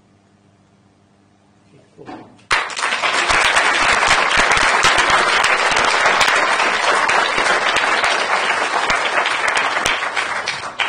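Audience applauding. It starts suddenly about two and a half seconds in, holds steady and dies away near the end.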